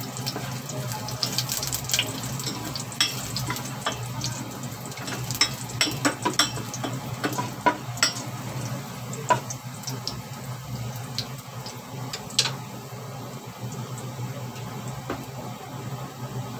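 Minced garlic sizzling in oil in a small metal pot, stirred with a spoon that clicks and scrapes against the pot. The stirring stops about three-quarters of the way through and the sizzle carries on alone.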